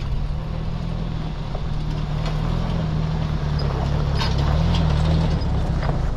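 Jeep Wrangler YJ engine running at low speed as it drives up close past the camera, growing slightly louder as it nears, with stones crackling under the tyres.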